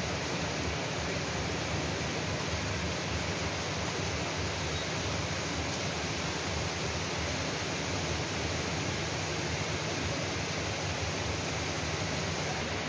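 Heavy rain falling steadily, an even rushing hiss that does not let up.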